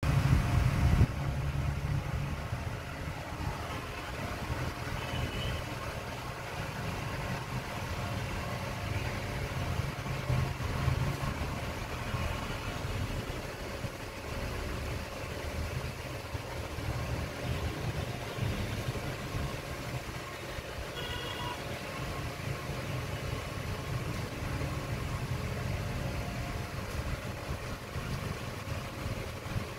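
Continuous low rumbling background noise, loudest in the first second, with a few faint short high tones scattered through it.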